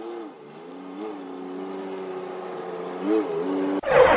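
Pickup truck engine running at low speed, with brief rises in pitch about a second in and again near the end. Just before the end, a sudden, louder noisy sound cuts in over it.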